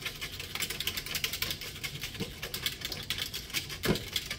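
A flat-bottomed whisk beating half-and-half in a tall clear pitcher, making rapid, irregular clicking and ticking as it strikes the sides and bottom.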